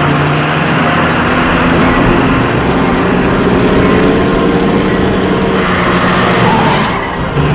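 Ford Mustang convertible driven fast, its engine running hard under a constant rush of road and wind noise. Its pitch climbs a little partway through.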